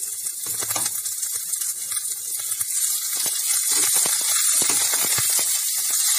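Chopped onions, ginger-garlic paste and green chillies sizzling in hot oil in a nonstick frying pan, stirred with a wooden spatula that scrapes and knocks against the pan. The sizzle grows gradually louder.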